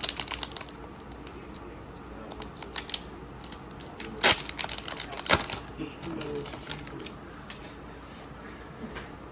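Trading cards being handled and flipped through: a run of sharp clicks and card snaps, the two loudest about four and five seconds in.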